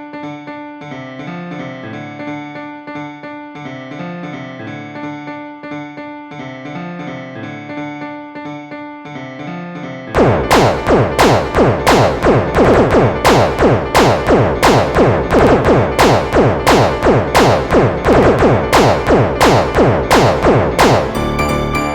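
Dark MIDI arrangement of an Android ringtone played back with synthesized keyboard sounds. A repeating melody runs for about ten seconds, then it turns abruptly much louder and denser, a wall of massed notes struck about three times a second, which thins out near the end.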